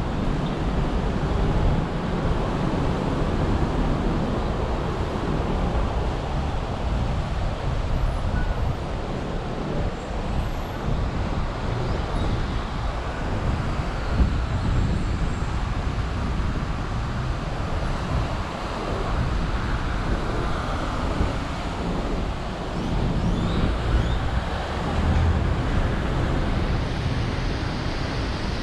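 Steady road traffic from a busy avenue below, mixed with wind rumbling and buffeting on the microphone.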